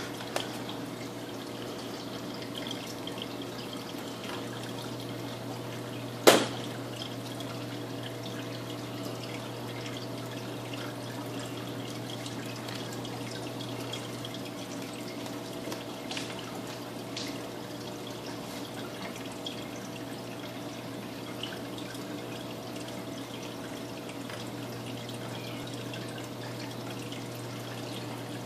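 Aquarium water trickling and dripping over a steady low hum from the tank's equipment, with one sharp click about six seconds in.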